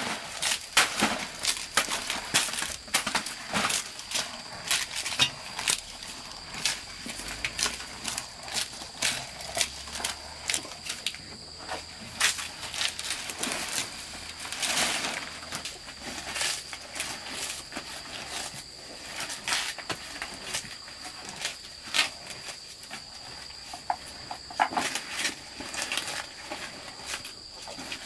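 Water buffalo tearing at and chewing fresh banana leaves: irregular crisp leaf rustles and crunches, several a second. Under them runs a steady high insect buzz.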